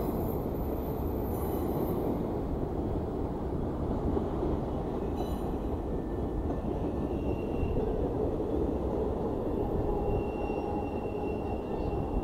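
Freight train rolling across a steel truss railroad bridge: a steady rumble of wheels on rail. Faint thin squealing tones come in past the middle.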